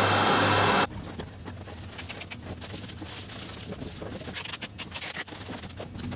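A UV roll-to-roll sticker printer running with a steady hum of its vacuum fan and motors, with several steady tones, cutting off abruptly about a second in. Then quieter, scattered rustling and clicking of plastic wrap and cardboard being handled while the machine is packed into a box.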